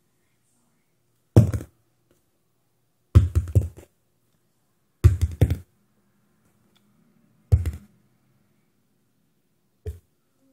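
A small plastic bottle being flipped and landing on a hard floor, four times about two seconds apart. Each landing is a quick cluster of knocks as the bottle hits and bounces, with one short, fainter knock near the end.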